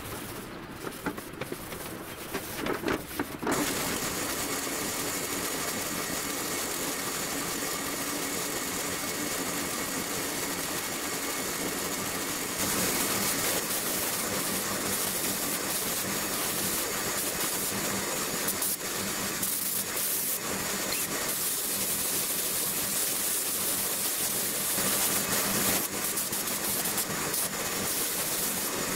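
A cloth rubbing over a panel for the first few seconds, then a spray gun's compressed air hissing steadily as it sprays epoxy primer, starting about three and a half seconds in and getting a little louder about halfway through.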